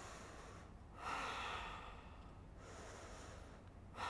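A woman breathing deeply while holding a yoga pose after fast cardio work. One long breath starts about a second in, and another begins near the end.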